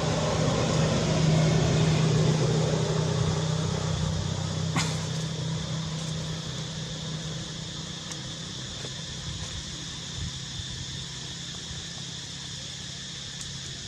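A motor engine humming steadily, loud at first and fading away over the first half, with one sharp click about five seconds in.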